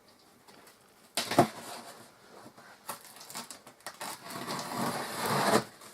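A blade cutting into a large cardboard box: a sharp knock about a second in, a few clicks, then a longer scraping, tearing cut near the end.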